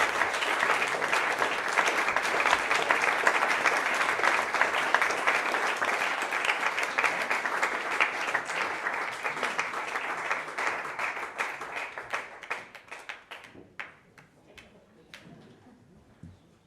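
Crowd applauding: dense clapping that thins out after about twelve seconds into a few scattered claps and dies away.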